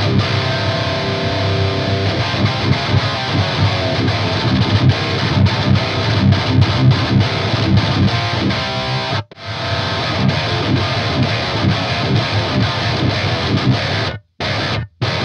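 Heavily distorted electric guitar riff played through the Fortin Nameless amp-sim plugin into a Randall Satan tube amplifier's power amp, so the tone carries both the plugin's power-amp emulation and the tube power amp. The playing stops dead for a moment about nine seconds in and twice more near the end.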